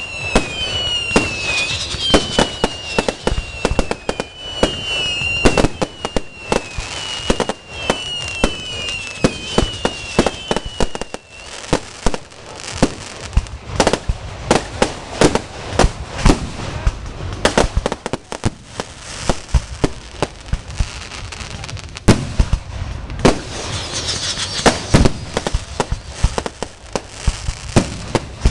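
Fireworks display: a rapid series of bangs and crackles from bursting shells, with a run of high whistles falling in pitch through the first ten seconds or so.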